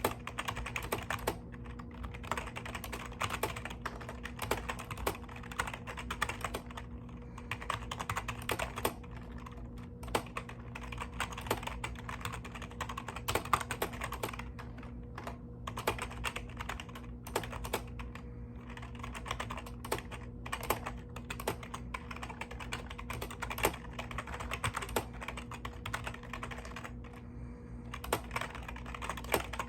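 Typing on a mechanical keyboard: a continuous irregular run of key clicks and clacks, with short pauses now and then. A steady low electrical hum runs underneath.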